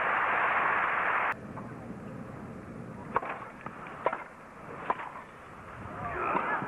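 Crowd applause that cuts off abruptly about a second in, then three sharp tennis racquet strikes on the ball a little under a second apart during a rally, and crowd noise swelling again near the end.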